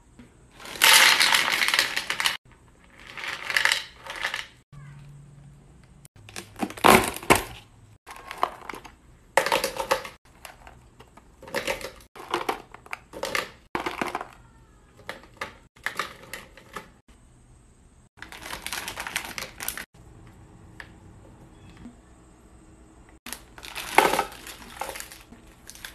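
Candies poured from crinkly plastic bags and by hand into the sections of a white serving platter: repeated bursts of small hard pieces clattering onto the dish, with bag crinkling, separated by short pauses.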